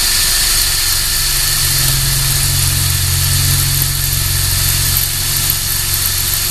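Power drill running steadily while boring a hole through 14-gauge sheet steel laid over a steel door, for a pop rivet. From about a second in, a deeper rumble of the bit cutting under load joins the motor's whine.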